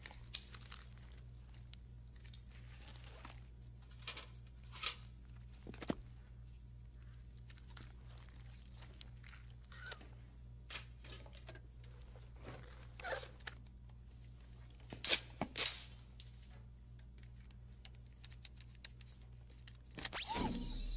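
A steady low electrical hum with scattered small, sharp clicks and ticks as connectors, a thin probe and a hand tool are worked into a damaged android's head; the loudest clicks come about five seconds in and twice around fifteen seconds.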